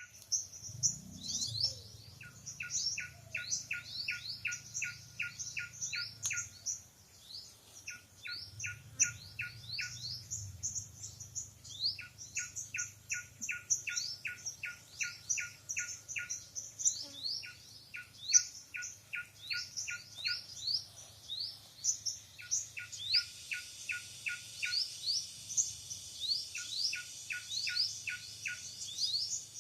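Forest songbirds chirping: a steady stream of quick, high, falling chirps, with a lower note repeated about three times a second in runs of a few seconds. A steady high hiss joins about three quarters of the way through.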